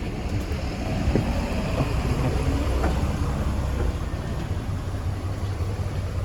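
Road traffic: a car passing by, growing louder about a second in and easing off after about four seconds, over a steady low rumble.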